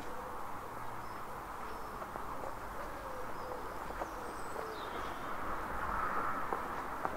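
Outdoor garden ambience: faint bird calls over a steady background hum, with a few soft footsteps on brick paving toward the end.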